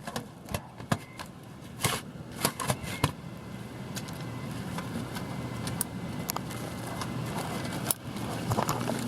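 Rustling and scraping with scattered sharp clicks and crackles, the noise of someone moving about and handling the camera and nearby objects.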